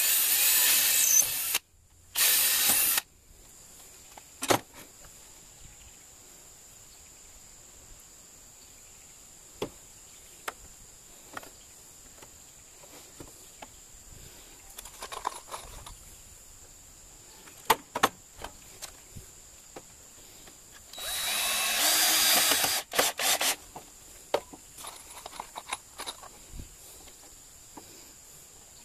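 Cordless drill running in short bursts: two bursts of about a second each at the start as the Ryobi 18-volt drill bores into a wooden board, then light knocks and clicks of handling, and a longer burst of drilling with a steady whine about three quarters of the way through.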